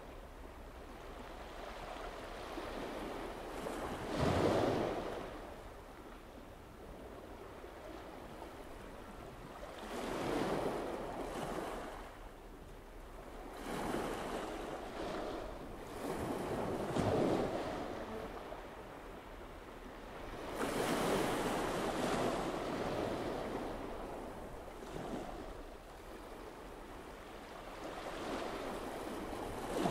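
Rushing outdoor noise of sea and wind, swelling and fading in surges every few seconds.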